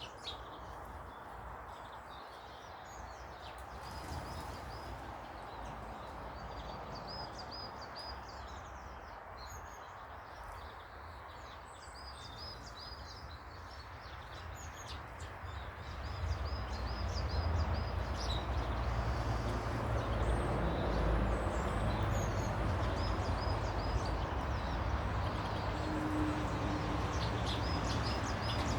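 Small birds chirping in quick repeated short notes, over a steady rushing background noise that grows louder and deeper a little over halfway through.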